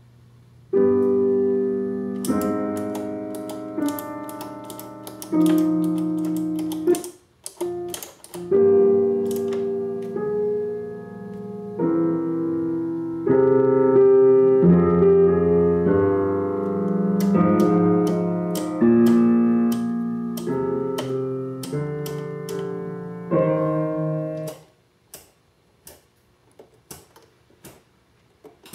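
Piano music played through a McIntosh C28 preamplifier and MC2105 solid-state power amplifier. About 24 seconds in the music stops and a run of sharp clicks follows as the input selector switch is turned.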